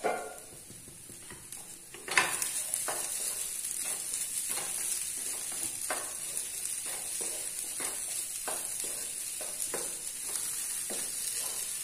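Potato and green-pea filling frying in a non-stick pan, sizzling steadily from about two seconds in, while a wooden spatula stirs and scrapes through it in repeated strokes.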